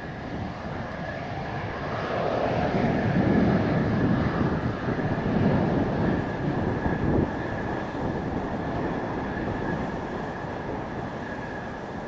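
Mitsubishi F-2 fighter's single F110 turbofan running at taxi power: a steady high whine over a low rumble that swells about two seconds in and eases after about seven seconds, as the jet turns its exhaust toward the listener. Strong wind buffets the microphone.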